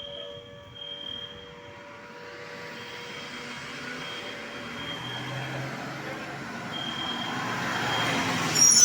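A passing vehicle, growing steadily louder to a sharp peak near the end with a short high squeal. Through it, a thin high beeping tone sounds on and off.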